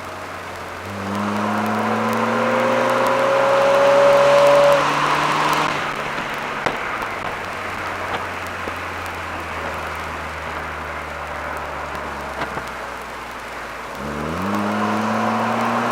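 Mercedes-Benz SLK 230 Kompressor's supercharged 2.3-litre four-cylinder engine, heard from inside the car. It accelerates hard for about four seconds with a rising whine, then drops back to a steady low drone while cruising, and picks up and accelerates again near the end.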